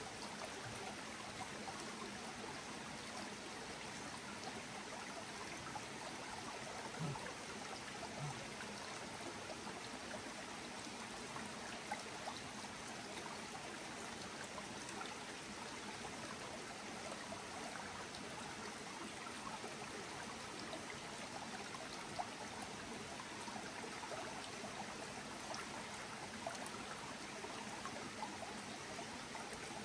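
Shallow forest stream trickling steadily over rocks, with a few faint taps.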